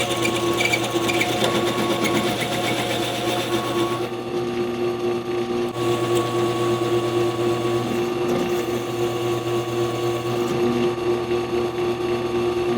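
Benchtop drill press motor running at a steady pitch while its bit bores a pin hole through AR400 abrasion-resistant steel flat bar.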